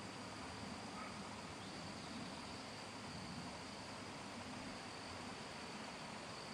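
Faint, steady outdoor background: an even hiss with a high, unbroken insect trill over it.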